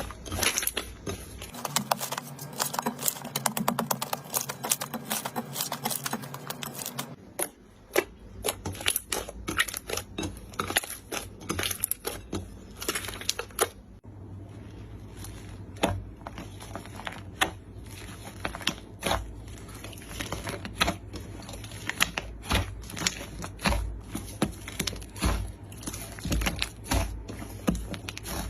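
Slime being squeezed, poked and stretched by hand: a run of quick sticky clicks, pops and crackles. The texture changes a couple of times as different slimes are handled.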